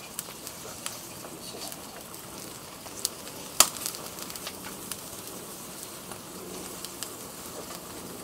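Fire burning through the plastic cabinet of a CRT television: scattered sharp crackles and pops over a steady hiss, the loudest pop about three and a half seconds in.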